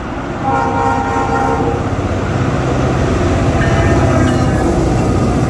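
Diesel freight locomotive sounding its air horn twice, a blast about half a second in and another a little past halfway, over the steady low rumble of the locomotive's engine as the train passes.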